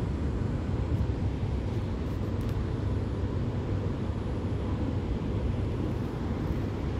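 Steady low machinery rumble, even throughout with no distinct knocks or changes.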